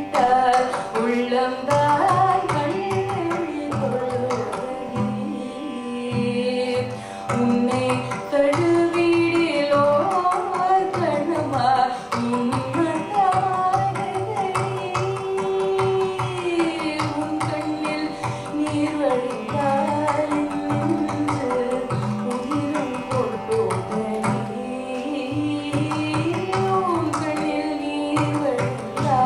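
A female Carnatic vocalist sings a melody full of gliding ornaments, accompanied by steady strokes on a mridangam, over a constant drone.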